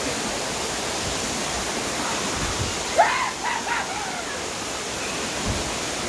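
Steady rush of a waterfall cascading over rock, with a brief high-pitched call about halfway through.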